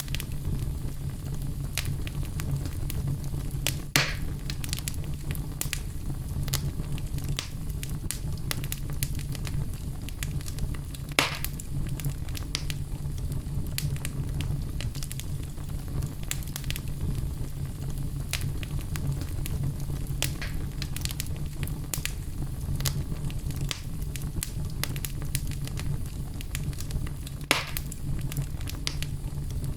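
Wood fire burning in a fireplace: a steady low rumble of flames with scattered crackles and three louder pops, one about four seconds in, one about eleven seconds in and one near the end.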